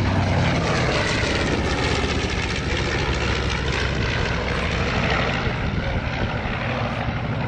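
B-25J Mitchell bomber's twin Wright R-2600 radial engines making a fly-by pass, a loud, steady propeller-engine sound whose note shifts in pitch as it goes by.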